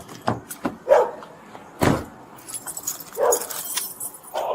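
A dog barking, twice, with clicks and a sharp knock about two seconds in.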